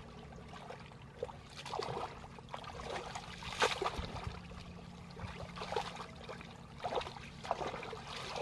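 Hands sloshing and splashing in a shallow muddy puddle while feeling through the mud for catfish by hand: irregular small splashes, with one sharper splash near the middle.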